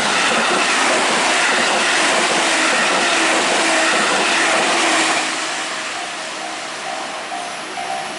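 A train passing close by, its running noise loudest for the first five seconds and then fading. A level-crossing bell rings with a steady repeating ding, heard clearly again as the train noise dies away.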